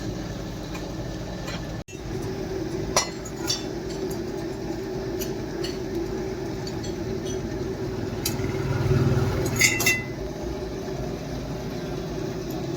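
Light metallic clinks over a steady low machine hum: a few single clinks, and near the end a quick cluster with one brief ring. The hum cuts out for an instant about two seconds in.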